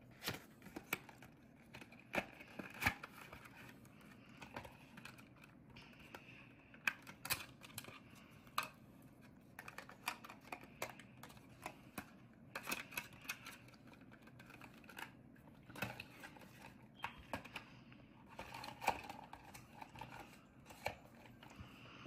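Clear plastic case and cardboard box being handled while an M.2 SSD is packed away: irregular clicks and taps with short bursts of plastic crinkling.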